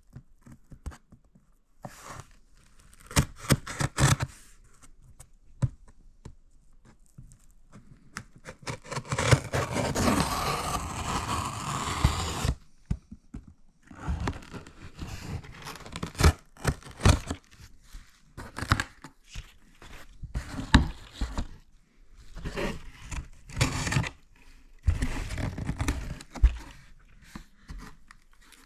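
A package being unpacked by hand: a long tearing sound about nine seconds in, amid scrapes, crinkling and scattered knocks of packaging being handled.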